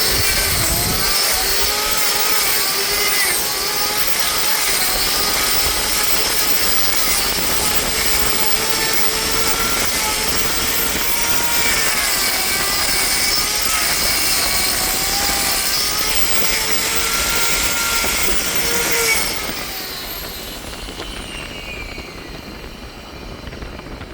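Hoof trimmer's electric angle grinder with a trimming disc, running under load as it grinds excess sole padding off a dairy cow's hoof. Its pitch wavers as the disc bites. About 19 seconds in it is switched off and winds down with a falling whine.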